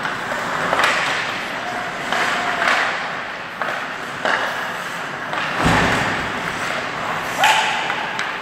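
Ice hockey play in a rink: sharp knocks of sticks and puck come every second or so, with one heavier thud about halfway through.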